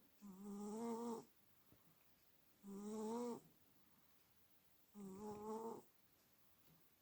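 Sleeping cat snoring: three pitched snoring breaths, each under a second long, about every two and a half seconds.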